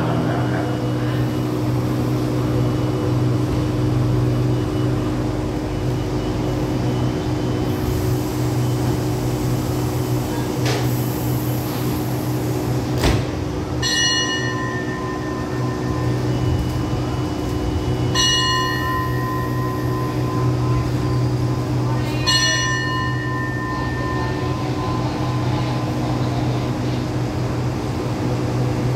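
A station bell struck three times, about four seconds apart, each ring dying away, over the steady hum of a standing passenger train; a sharp knock comes just before the first ring. Thai station bells are rung like this to signal a train's departure.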